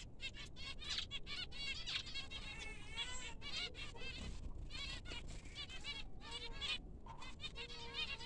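A flock of zebra finches calling: many short calls, several a second, overlapping with one another throughout.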